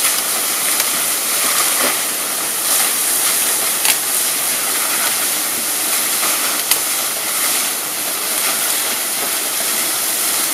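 Waterfall rushing steadily, with a few sharp snaps about two, four and seven seconds in.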